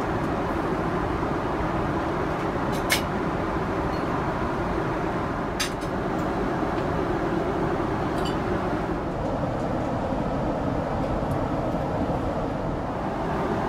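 Steady in-flight cabin noise of a Boeing 777-300ER: an even rush of air and engine noise with a faint hum. A couple of brief sharp clicks come about three and five and a half seconds in.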